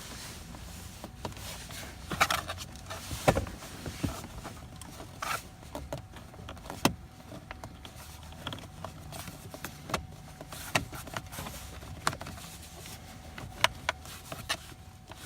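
Scattered sharp clicks and knocks of the clip-together housing pieces around a car's turn-signal switch being pressed and worked together by hand, trying to snap them back into place.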